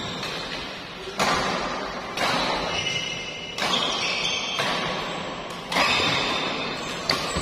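Badminton rackets striking a shuttlecock in a doubles rally, about six sharp hits roughly a second apart, each echoing in a large sports hall.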